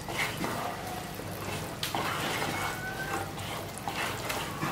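Thick sugar syrup bubbling and sizzling in a nonstick kadhai as fried maida petha sticks are turned through it with a wooden spatula, with light scrapes and knocks of the spatula on the pan. The syrup is being cooked onto the sticks to set as a sugar coating.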